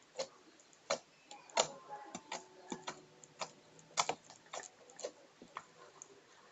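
Homemade slime being squeezed and pressed by hand, making sharp, irregular clicks and pops, about two or three a second.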